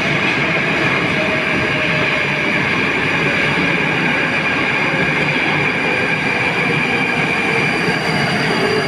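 Moscow Metro Moskva-2020 train running alongside the station platform: a loud, steady rush of wheels and traction with a high whine held throughout.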